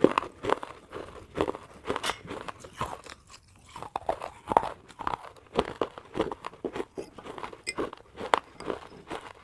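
Person chewing crunchy pieces of baked clay pot, with sharp, irregular crunches about twice a second.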